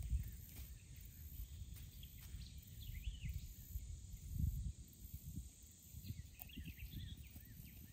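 Outdoor riverbank ambience: wind rumbling on the microphone in gusts, strongest about halfway through, with a few short bird chirps now and then.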